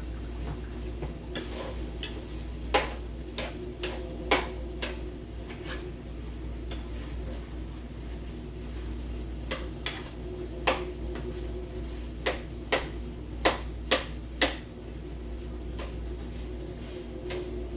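A utensil knocking and scraping against a cooking pan in irregular bursts of sharp clicks, as ground beef is stirred and broken up while it browns. A steady low hum runs underneath.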